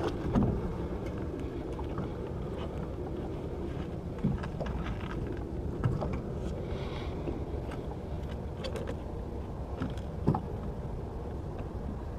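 Motorboat engine running with a steady low rumble, with a few short knocks scattered through.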